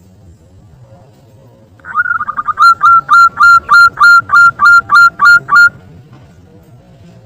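Zebra dove (perkutut) song: a quick stuttering run of notes, then about ten clipped, evenly spaced notes, roughly three a second, stopping after about four seconds.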